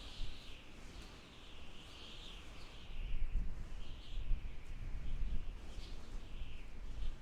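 Wind howling, a high wavering whistle rising and falling in slow swells over a gusty low rumble that grows stronger about three seconds in.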